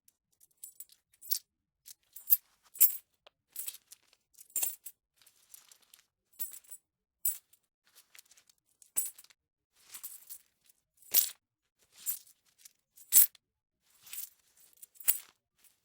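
Metal coins being handled, clinking and clanking against each other in irregular separate bursts, some louder, with a bright ring to each clink.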